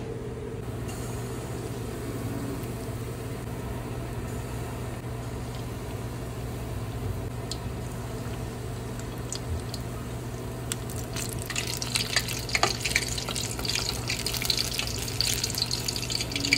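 Banana batter fritters frying in hot oil: a faint sizzle at first, then dense crackling and spitting from about eleven seconds in. A steady low hum runs underneath.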